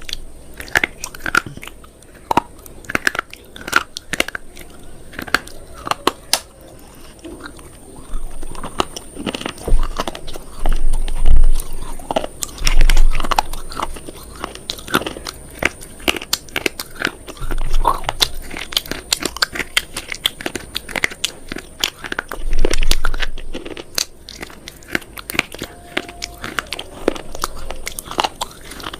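A person biting and chewing something crunchy close to the microphone: irregular crisp snaps and crackles, with louder bites at a few points.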